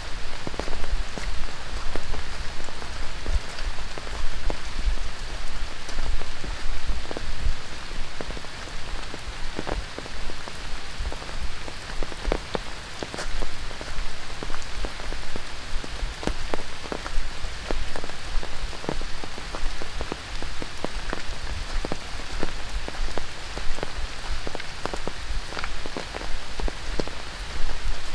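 Steady tropical rain falling on rainforest foliage and a wet gravel path: an even hiss with many single drops hitting close by.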